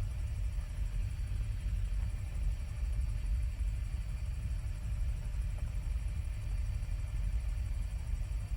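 Helicopter engine and rotor noise heard from aboard: a steady low rumble.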